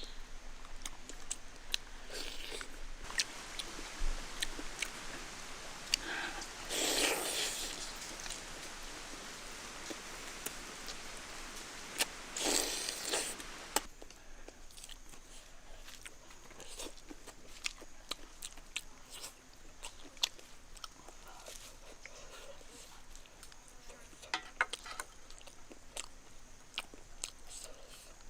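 Someone biting into and chewing crispy deep-fried turkey, with scattered crackly clicks and two louder crunching bites about five seconds apart.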